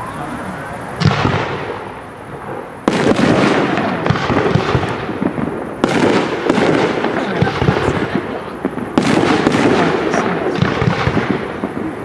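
Fireworks display: a rising whistle and a thump about a second in, then three loud waves of aerial shell bursts and crackling, starting about three, six and nine seconds in.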